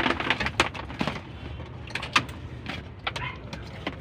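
Irregular clicks and light knocks from hands-on work on a truck's wiring harness, thickest in the first second and then scattered, over a steady low hum.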